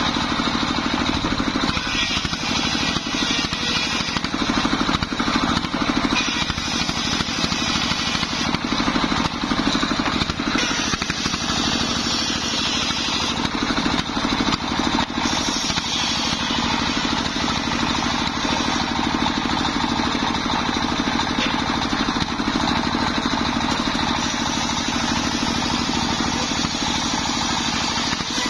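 Single-cylinder stationary diesel engine running steadily, belt-driving a homemade table circular saw that rips planks of waru wood lengthwise. The high cutting noise swells and fades as the boards are pushed through the blade.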